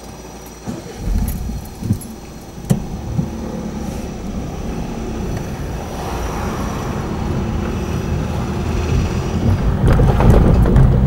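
Car driving over a level crossing: low engine and road rumble building up steadily, with a few sharp thumps in the first three seconds as the tyres go over the rails.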